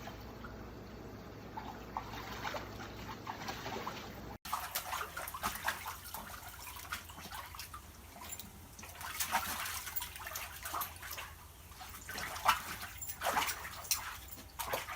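A dog splashing and sloshing water in a shallow foldable PVC pet pool, in short irregular splashes that pick up after the first few seconds.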